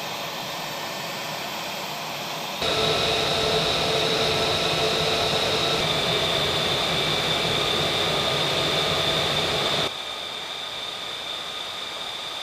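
F-35A jet engine idling on the ground: a steady high whine over a rush of air noise. It gets suddenly louder about two and a half seconds in and drops back about ten seconds in.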